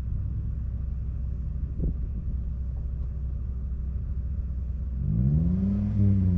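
Off-road rally car engine running on a dirt track: a steady low rumble, then about five seconds in it gets louder, the engine pitch rising and then dropping.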